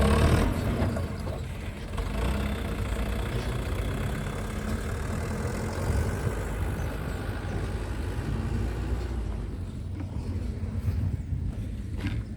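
Engine running steadily at a low rumble, with a loud knock right at the start.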